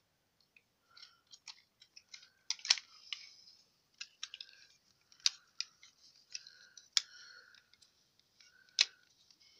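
Plastic knight armour pieces being handled and clicked onto a Transformers Grimlock toy: a run of small clicks and rattles, with four sharper snaps spread through it.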